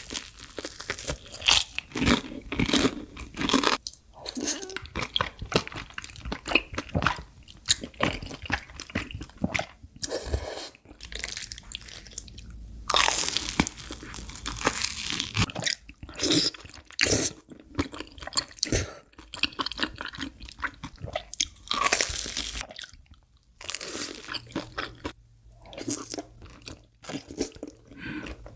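Close-miked crunching and chewing of food: crisp bites into a crumb-coated fried snack, the crunches coming in irregular clusters with short pauses between.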